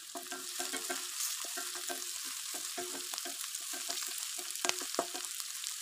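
Chopped onions and green chillies sizzling in hot mustard oil in a kadhai, with a wooden spatula stirring and scraping them in short, repeated strokes over a steady hiss.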